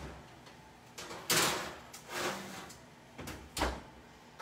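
Oven door and rack being handled as a cookie sheet goes into the oven: a clunk, a scraping slide a little over a second in, a shorter scrape, then two knocks near the end, the last one a heavier thud as the door shuts.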